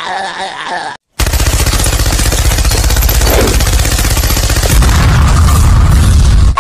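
Sound effect of rapid, sustained machine-gun fire, starting abruptly about a second in after a brief silence. A deeper booming builds under the fire over the last couple of seconds as an explosion.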